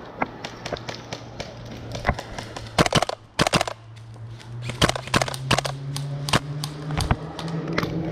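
Airsoft guns firing in an irregular string of sharp cracks and clicks, some single and some in quick pairs, during a skirmish.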